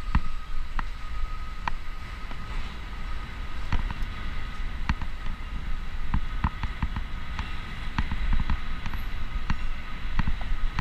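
A bicycle riding along a city street, heard from a camera mounted on the bike: a steady low road rumble with frequent irregular clicks and rattles, and car traffic alongside.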